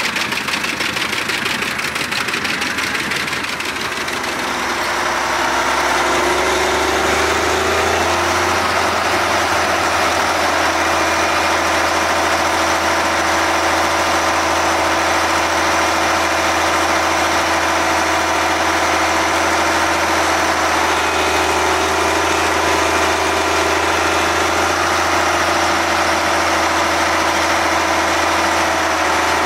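Albach Diamant 2000 mobile wood chipper running, its 770 hp six-cylinder engine working under load while chipping. About four to six seconds in, the sound grows louder and settles into a steady run at a constant pitch.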